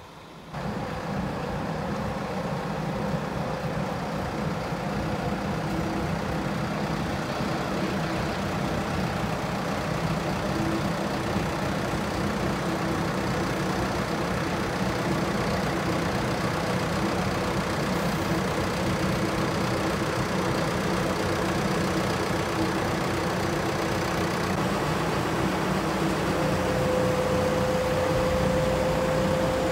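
Scania P230 road sweeper's diesel engine running steadily, getting much louder about half a second in, as the FAUN sweeper's hopper is raised hydraulically for high tipping. A steady whine joins near the end.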